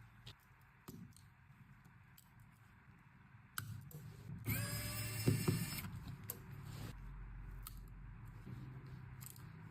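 Small clicks and taps of repair tools working on a smartphone during a screen replacement, with a louder high-pitched squeak lasting about a second and a half near the middle.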